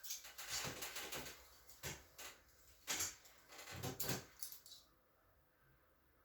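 Rustling and light clattering of things being handled, with a few sharp knocks, stopping about five seconds in.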